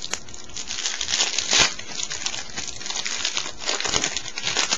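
Foil trading-card pack wrapper being torn open and crinkled by hand: a dense run of crackling and crinkling, loudest about a second and a half in.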